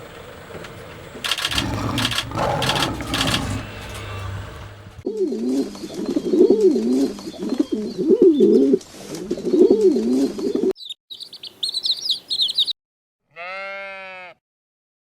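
Several animal sounds in a row, separated by sudden cuts. First comes about five seconds of unclear noisy sound. Then a pigeon coos in repeated low phrases that rise and fall, then small birds chirp briefly, and near the end there is a single wavering animal call about a second long.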